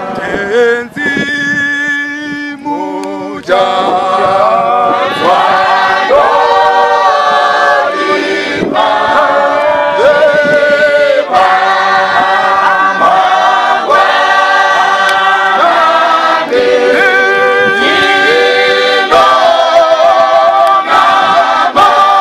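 A group of voices singing together unaccompanied, in harmony. The singing grows louder and fuller about three and a half seconds in.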